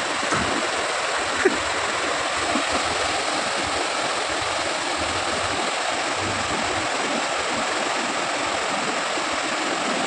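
Mountain stream rapids rushing over rocks into a pool, a steady, even rush of white water.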